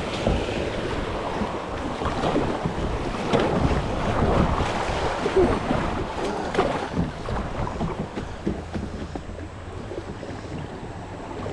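River water rushing and splashing around a kayak, with wind buffeting the microphone; the water noise eases off near the end.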